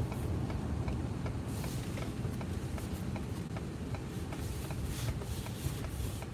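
Low steady rumble inside the cab of a Ford F-250 with the 6.7-litre Power Stroke V8 turbodiesel, rolling slowly, with a faint even ticking throughout and a couple of brief hisses.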